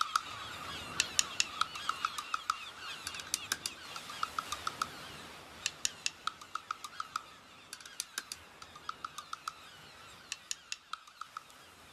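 Closing bars of a track, fading out: sparse sharp clicks and runs of short chirping blips, four or five at a time, every second or so.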